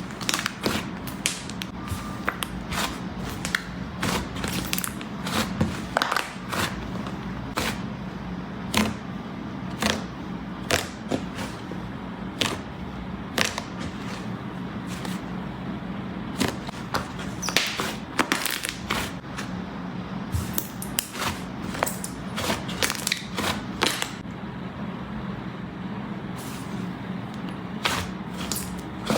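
Slime being squished and kneaded by hand, giving a steady run of irregular sticky clicks and pops, over a constant low hum.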